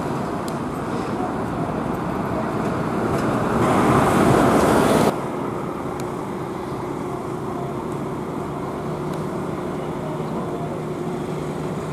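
Road traffic with buses: a double-decker bus passing close, its noise building to a loud peak about four to five seconds in and cutting off suddenly. Then a coach's engine runs steadily amid the traffic.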